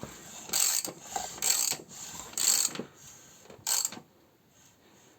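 Mechanical ratcheting clicks in four short bursts, each under half a second, in the first four seconds.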